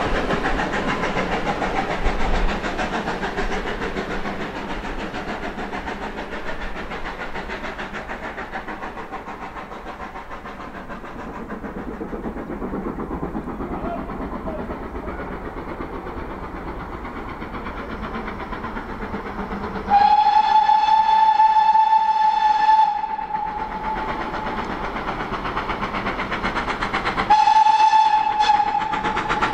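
The clatter of a passing train's coaches on the rails fades away. Then an approaching Great Western steam locomotive sounds its whistle twice: a steady blast of about three seconds, and a shorter one about four seconds later, as the noise of the train builds again near the end.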